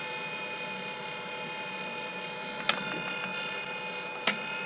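Hot-air BGA rework station running with a steady, multi-toned motor whine while a chip is lifted with a vacuum pickup. Two sharp clicks, nearly three seconds in and again about a second and a half later.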